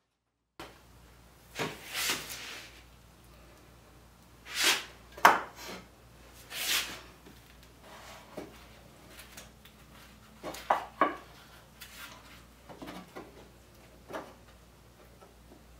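Thin wooden frame strips handled and set in place on a board: scattered wooden knocks and short scraping slides, the sharpest knock about five seconds in, with a pair of knocks near eleven seconds.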